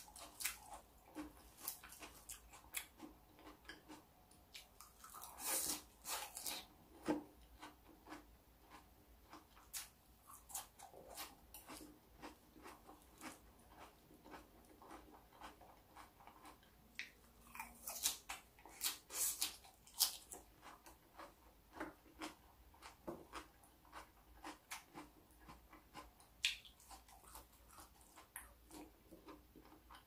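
A person chewing and crunching raw salad vegetables close to the microphone, with irregular crisp crunches. The crunches come thicker and louder about six seconds in and again around eighteen to twenty seconds in.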